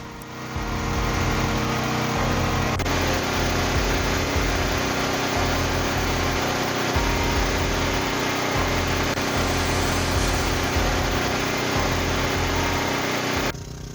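WEN DF1100T portable generator's single-cylinder engine running steadily on natural gas. It cuts off suddenly near the end.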